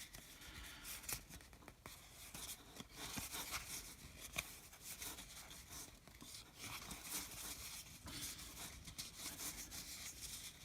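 Faint rustling and scraping of baseball cards and a card-pack wrapper being handled and torn open, in soft scattered strokes.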